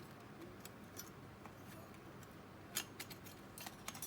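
Faint scattered clicks and light metallic taps of small parts being handled while a MiniDisc deck's mechanism is lifted out, with a quick cluster of louder clicks about three seconds in and another near the end.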